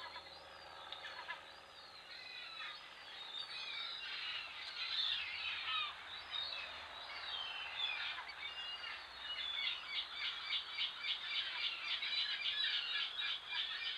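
Small songbirds chirping and singing, with many short, varied high calls overlapping. Near the end comes a fast run of quickly repeated high notes.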